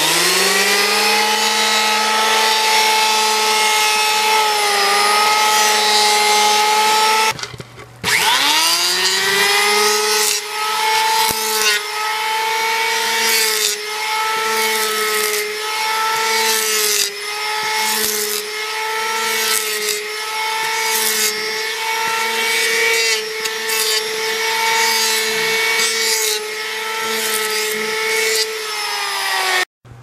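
Electric hand planer running as it shaves a piece of cedar into shavings. Its motor whine dips about once a second as each pass of the blade bites the wood. It switches off about seven seconds in and winds down, starts again a second later, and cuts off just before the end.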